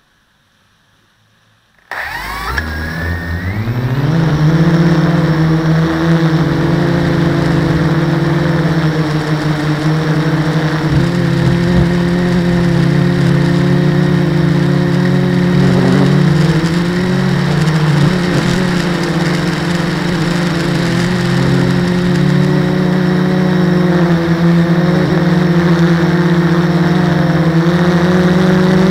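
Multirotor drone's electric motors and propellers spinning up about two seconds in, the hum rising in pitch, then a steady loud buzzing whine with small shifts in pitch as the drone flies. Heard from a camera mounted on the drone itself.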